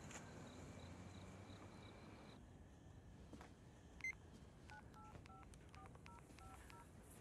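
A telephone's touch-tone keypad being dialled, faintly: a click, then a quick string of about nine short two-tone beeps.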